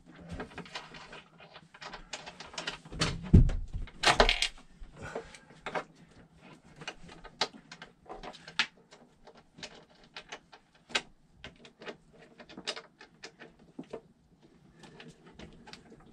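Irregular small clicks and knocks of heavy battery cables and their lugs being handled and fitted onto lithium battery terminals, with a louder thump about three seconds in.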